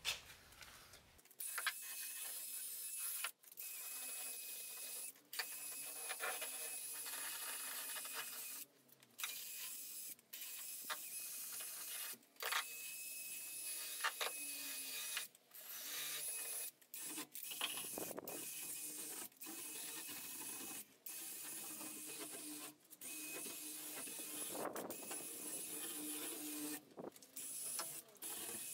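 Cordless drill spinning a scrubbing-brush attachment, run in repeated stretches of a few seconds, each cut off abruptly as the trigger is released, with a faint steady high motor whine over a hissing scrub.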